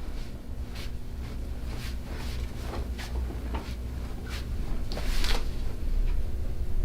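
Soft clicks, knocks and rustling from people moving and repositioning on a chiropractic treatment table, a few a second at most and busiest about five seconds in, over a steady low hum.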